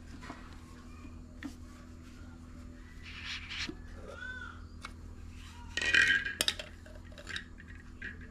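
Stainless-steel mixer-grinder jar and lid being handled: a metal scrape about three seconds in as the lid comes off, then a louder clatter of metal clinks about six seconds in as the lid is set down. A low steady hum runs underneath.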